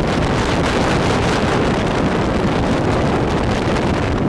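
Speedboat running fast across open water, with wind buffeting the microphone: a loud, steady rush of wind, water and motor.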